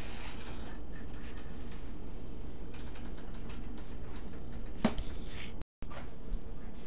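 Small kitchen clicks and taps over a steady low background hum, with one louder knock about five seconds in; the sound drops out for a moment shortly after, at an edit.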